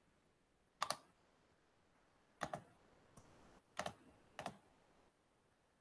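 Four isolated sharp clicks from computer controls being operated, spaced about a second or more apart, each a quick double tick, as the on-screen window is switched.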